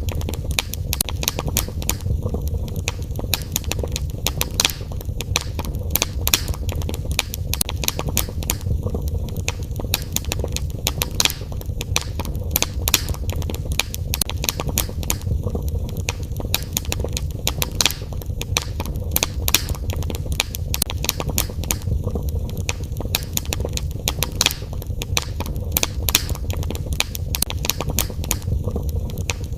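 Wood fire burning in a fireplace: many irregular sharp crackles, several a second, over a steady low rumble of the flames.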